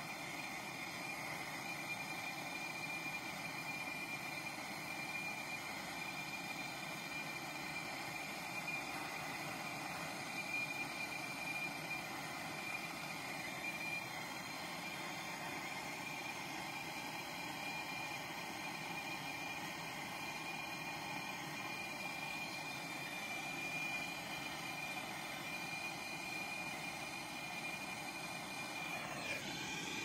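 Brazing torch burning steadily, a continuous hissing rush of flame with a thin steady high whistle, as it heats a copper tube joint on a refrigerator compressor ready for brazing.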